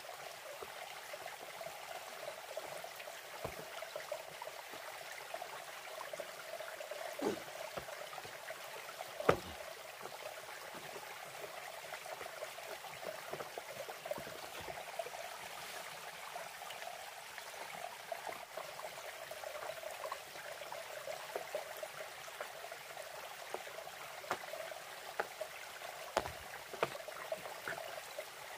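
Steady running water, like a small stream, with a few faint knocks, the clearest about nine seconds in.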